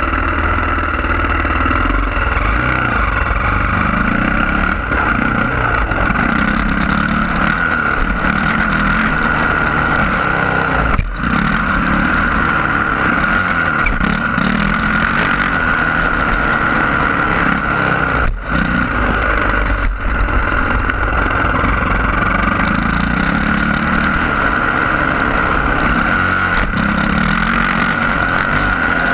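Yamaha YZ450F's 450 cc four-stroke single-cylinder motocross engine under way, revving up and down as the bike is ridden around the track, heard from a camera on the bike with wind rumble on the microphone. Its sound drops out briefly a few times, once about eleven seconds in and twice more later on.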